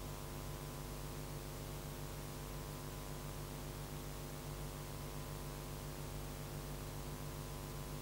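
Steady electrical mains hum with a buzzing stack of overtones under an even hiss: the background noise of the recording, with no other sound.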